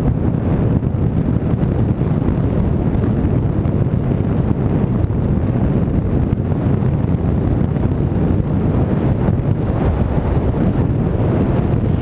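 Wind buffeting the microphone: a steady, loud low rumble with no clear engine tone.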